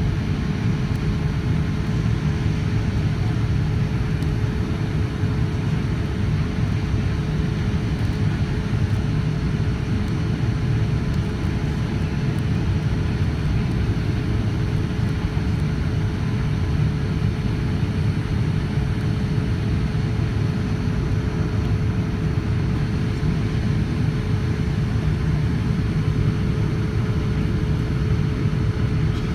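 Boeing 787-9 Dreamliner on approach: a steady low rumble of engine and airflow noise with a constant mid-pitched engine hum above it, unchanging throughout.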